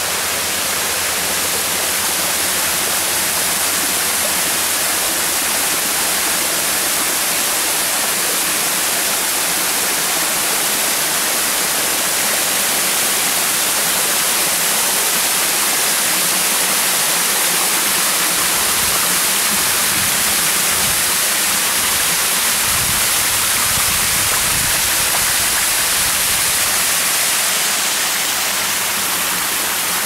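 Small waterfall pouring over rock ledges and splashing into a pond: a steady rushing hiss that eases a little near the end.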